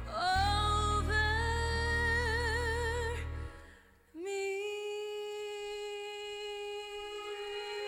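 A female singer holds a sung phrase with wide vibrato over a low sustained accompaniment, which fades out about three and a half seconds in. After a brief near-silent break, a single steady note with no vibrato is held to the end.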